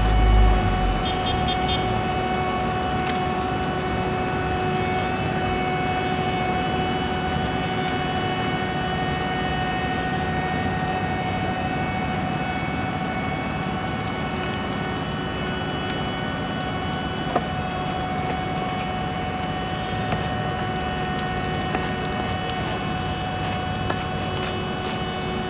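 Heavy construction machinery running steadily at paving work, a constant engine hum with steady whining tones. A deeper rumble fades out about a second in.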